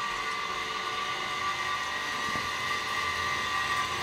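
A small electric motor running steadily with a constant high whine.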